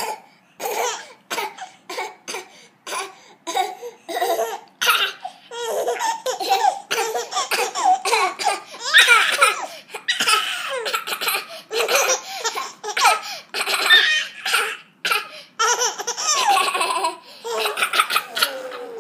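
Baby laughing hard in a long run of short bursts of laughter, choppy at first and then almost without a break, loudest about halfway through. The laughter is set off by someone's coughing.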